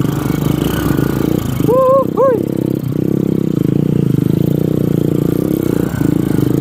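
Motorcycle engine running steadily with a fast, even pulse. About two seconds in, a person calls out twice briefly over it.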